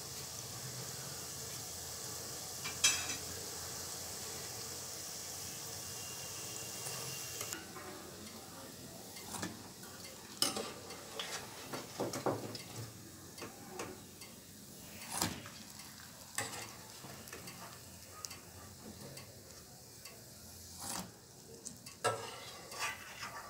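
Dough balls sizzling steadily as they deep-fry in hot oil, with a sharp tick about 3 s in. The sizzle stops about 7.5 s in. Irregular clinks and knocks follow as fried balls are put into a steel pot of liquid with a slotted spoon.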